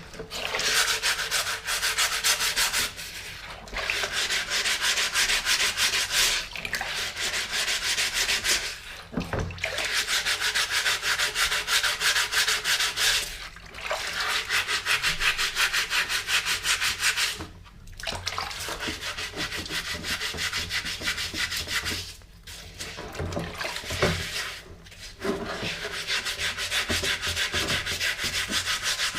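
Rapid scrubbing strokes on the steel shell of a German M40 helmet, cleaning off dirt. The strokes come in bouts of several seconds with brief pauses between them.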